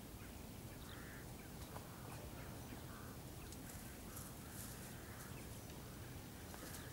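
Faint, short bird calls repeated irregularly, about one every half second to a second, over a steady low outdoor rumble.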